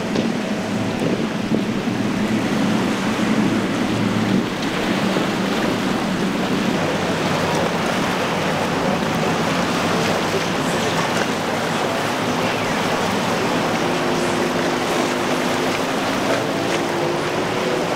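Outboard motorboats running through rough inlet chop: a steady rush of spray and surf with wind on the microphone, and an engine drone beneath it. In the latter part the single Mercury 225 outboard of a 24-foot Stamas center console holds a steady note that climbs a little near the end.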